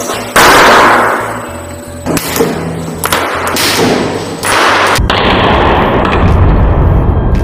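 Industrial twin-shaft shredder crushing rifle cartridges. A loud bang comes about half a second in as a cartridge goes off in the blades, followed by several more sharp bangs and cracks. From about five seconds in, the shredder's steady low running rumble is heard.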